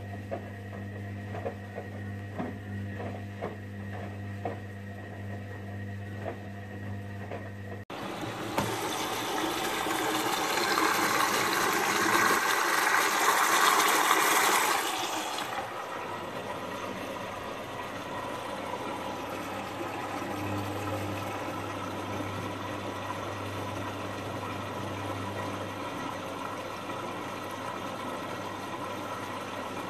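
Sangiorgio S5510I front-loading washing machine at work: the drum turns with a low motor hum and light clicking. Then water rushes in through the detergent drawer as the machine fills, loudest for about five seconds. The fill then eases to a softer, steady run of water while the drum motor hums again.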